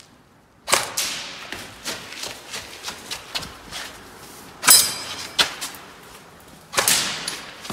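Airsoft rifle shots and footsteps, with sharp knocks about a second in and near the end. Two-thirds through comes the loudest, a ringing metallic clink: a BB striking a steel target.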